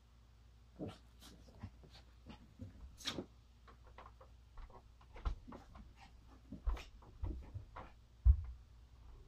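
Small puppy moving about on blankets: scattered, irregular rustles and scratches with a few soft thumps, the loudest a little after eight seconds in.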